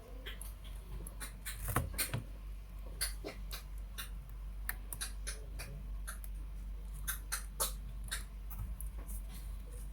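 Irregular small clicks and taps from hands working on a laptop's plastic case and small parts, over a steady low hum.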